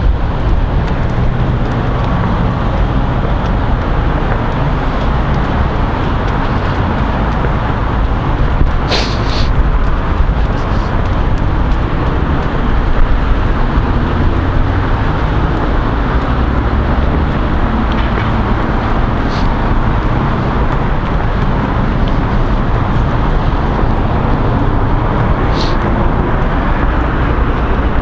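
Loud wind buffeting the microphone: a steady low rumbling noise, with a few short clicks.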